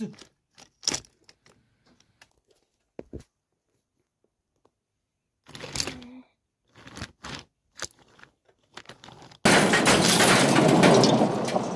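Light clicks and knocks of diecast toy trains on plastic track, then about nine and a half seconds in a sudden loud crash that lasts about three seconds and fades: a runaway train smashing into an engine.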